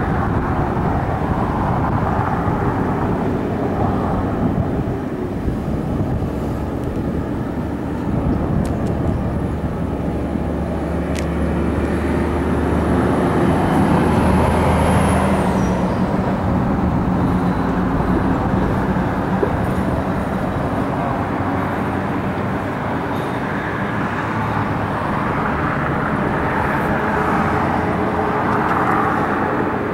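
Diesel locomotive of a Union Pacific coal train approaching, a steady engine rumble with a low hum, swelling slightly around the middle. A faint high whine sits above it for several seconds and drops away about halfway through.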